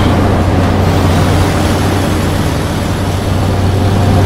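Peterbilt tanker truck's diesel engine running at speed on the highway: a steady low drone under dense rushing road noise.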